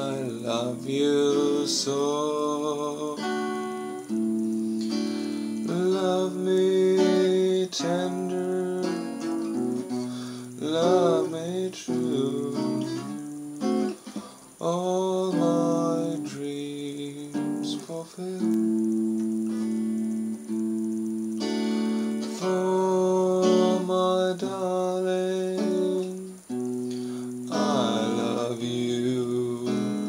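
A man singing while strumming chords on an electric guitar, with short pauses between phrases.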